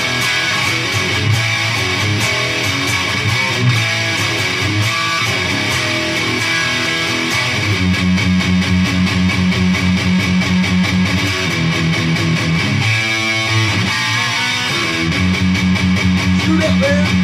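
Electric guitar played through a Peavey Triple XXX II tube amp head and two-speaker cabinet, playing a rock song riff. From about eight seconds in it settles into fast, even repeated low notes, with a short fill near thirteen seconds.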